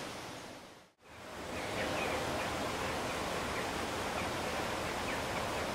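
Steady outdoor background noise with no clear source, fading to silence about a second in and coming back up, with a few faint short high chirps.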